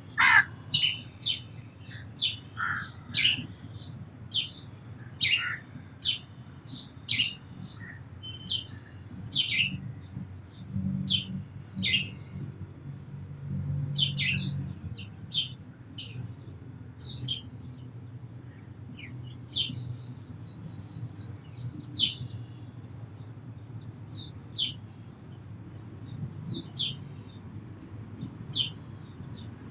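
Sparrows chirping: many short, high chirps, coming thick and fast at first and thinning out later, over a low steady rumble.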